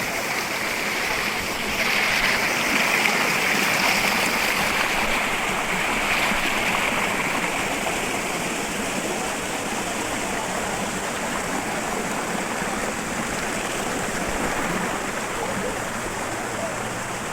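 Waterfall rushing steadily, a continuous churn of falling water, a little louder a couple of seconds in.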